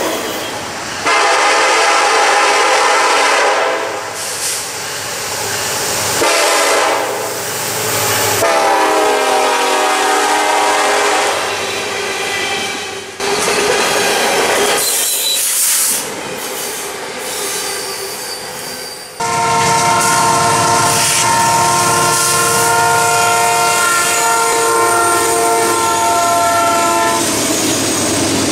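Diesel freight locomotive air horns sounding over passing trains: a chord blast about a second in, another from about six seconds whose pitch drops as the locomotive passes, then a long steady blast from about two-thirds of the way through to near the end. Between the horns, freight cars roll past.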